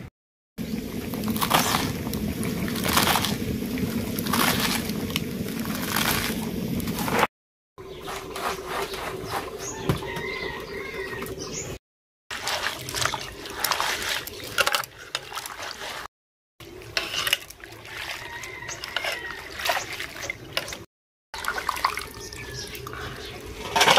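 Hands swishing and squeezing chopped mustard greens in a steel bowl of water, with uneven splashing and dripping. At first a few sharp knife strokes on a wooden board as the leaves are cut.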